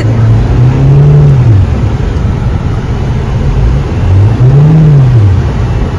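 Car engine revving up and falling back twice as the car struggles to drive through deep snow, over a steady rushing noise.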